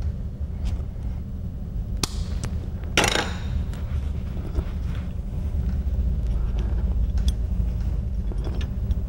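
Small metal clicks and taps of a turnscrew prying an ejector assembly (kicker, spring and ejector box) out of a boxlock shotgun's forend iron, the sharpest click about three seconds in. A steady low hum runs underneath.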